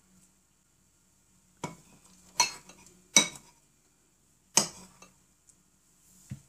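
Metal spoon clinking and scraping against a ceramic bowl while scooping up sticky oat-and-buckwheat flake cookie mixture: four sharp clinks, then a fainter one near the end.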